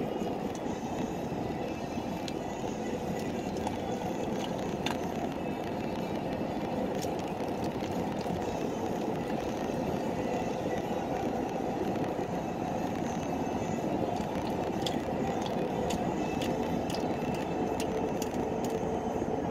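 Steady rumble of road noise inside a moving vehicle, with scattered faint small clicks and crackles over it.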